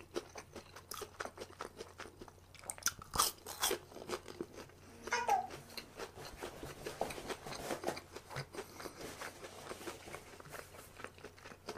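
A person chewing a bite of battered, deep-fried seaweed roll filled with glass noodles: irregular crunches and chewing clicks, loudest about three seconds in.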